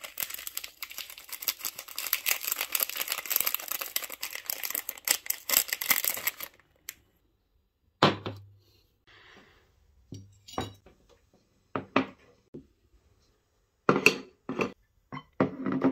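Topping flakes shaken out of a foil seasoning sachet onto a bowl of noodles, a dense crackly rustle lasting about six seconds. After that come several separate sharp knocks as plates and bowls are set down on a wooden table.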